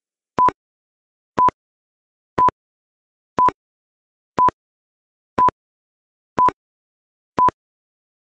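Countdown timer beeping: short electronic beeps of one steady tone, evenly spaced one per second, eight times, marking off the seconds of the countdown.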